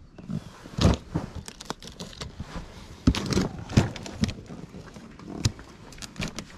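Cardboard printer box being handled and tipped onto its end on concrete: rustling and scraping of the cardboard with several sharp knocks, the loudest about a second in and around three to four seconds in.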